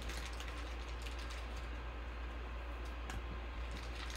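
Panini Prizm basketball cards being flipped and slid against each other by hand: a run of quick, light clicks and scrapes, over a steady low hum.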